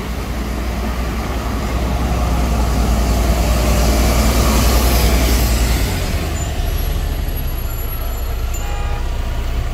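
Articulated gas-fuelled (CNG) city bus passing close by, its low engine rumble growing louder to a peak about four to five seconds in, then dropping away at about six seconds as the bus moves off.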